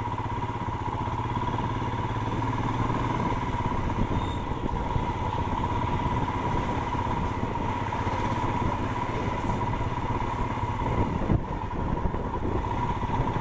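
Royal Enfield Himalayan BS6 single-cylinder engine running steadily at low speed while the motorcycle rolls slowly along, heard from on the bike.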